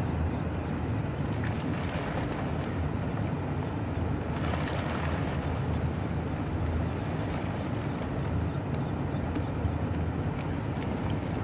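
Cow dung tipped from a wheelbarrow, sliding out and dropping into a tank of water, loudest about four to five seconds in, over a steady low rumble.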